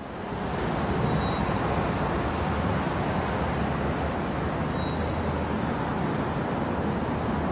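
Metro train running: a steady rumble and rush that fades in over about the first second, then holds level, with two faint short high tones.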